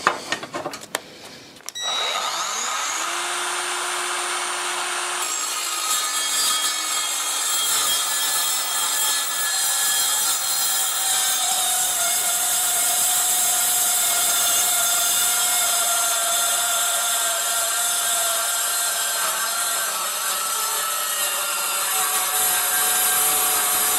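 Metabo MKS 18 LTX 58 battery-powered cold saw starting about two seconds in, its motor rising in pitch as it spins up. From about five seconds in, its blade cuts steadily into 12 mm steel plate with a loud, high-pitched noise and ringing tones, the saw struggling in the thick plate.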